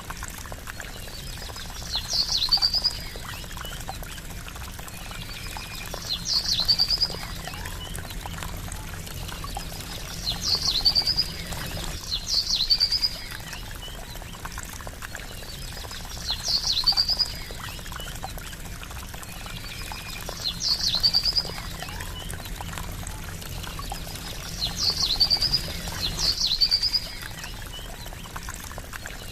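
Steady trickling water, with a short, sharp, high bird call repeating every few seconds, eight times in all.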